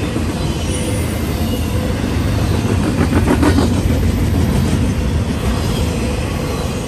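Intermodal freight train cars rolling past with a steady rumble of steel wheels on rail. About three seconds in there is a quick run of clacks.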